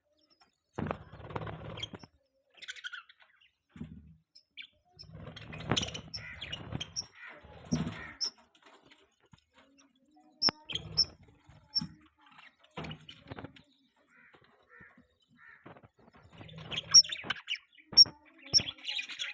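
Budgerigars chirping and warbling in short, broken bursts, with sharp high chirps about ten seconds in and a busier run of chirps near the end.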